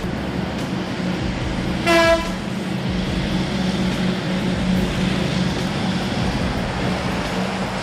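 Heavy machinery engine running steadily, with one short horn toot about two seconds in.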